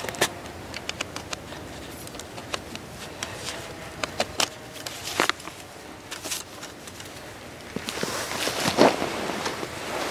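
Small metal-framed folding chair being handled and opened: scattered sharp clicks and taps from its tubular frame. Near the end, a louder rustling scrape as it is set down on the snow.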